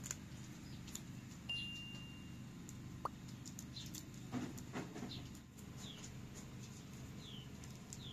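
Small birds chirping in short, falling calls about once a second, with one longer, steady whistled note near the start, over a steady low hum.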